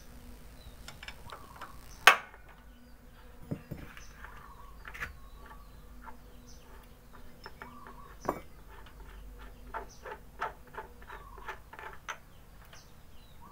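Small metal clicks and clinks of a ring spanner and fingers working the valve (tappet) cover off a Yamaha Mio scooter engine: one sharp click about two seconds in, scattered clicks after it, and a quicker run of clicks near the end.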